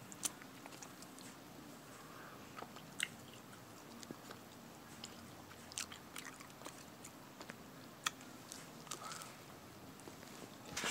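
Faint chewing and biting of food close to the microphone, with a few short sharp clicks two to three seconds apart.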